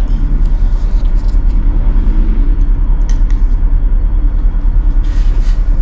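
A steady, low rumble with a rapid, even pulsing. There are a few faint clicks around three and five seconds in.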